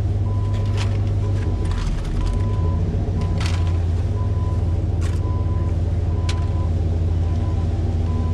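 Heavy diesel machinery running with a steady low rumble, while a backup alarm beeps at an even pace, with a few sharp knocks.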